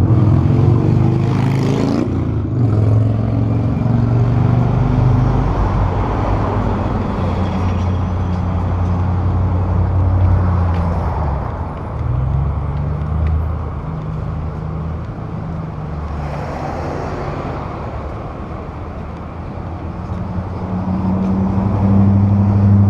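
Road traffic: car and truck engines running and moving along the street close by, their low hum shifting in pitch as vehicles pass.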